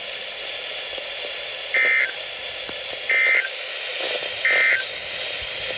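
NOAA Weather Radio Emergency Alert System end-of-message data bursts: three short digital two-tone squawks about 1.3 seconds apart over steady radio hiss, marking the end of a flash flood warning.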